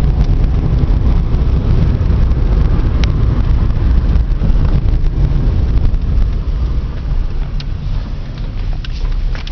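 Car driving, heard from inside the cabin: a steady low rumble of engine and tyres on a rough country lane, which eases off about six seconds in as the car slows. A few sharp ticks near the end.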